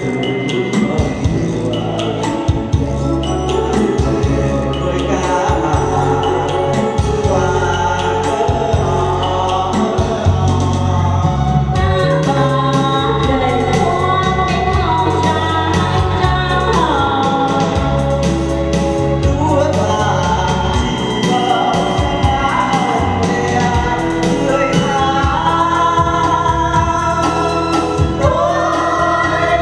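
A man and a woman singing a Vietnamese duet into handheld microphones over an amplified backing track.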